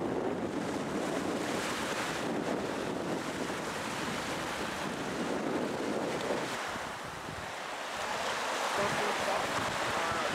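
Sea surf: small waves breaking and washing onto the shore, with wind on the microphone.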